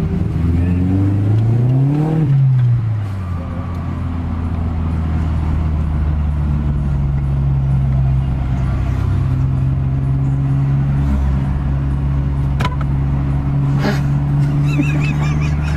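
Car engine running steadily, revving up and back down about two seconds in, with a couple of sharp clicks near the end.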